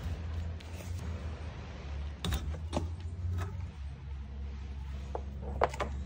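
Rope being pulled free of a quick-release knot on a trailer hitch receiver and dropped to the floor: a few short knocks and rustles, the sharpest near the end, over a steady low hum.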